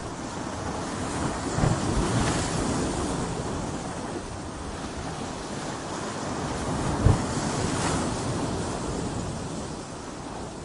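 Sea waves crashing and surging against rocks. Two large surges, about two seconds in and about seven seconds in, each land with a low thump before the wash eases off.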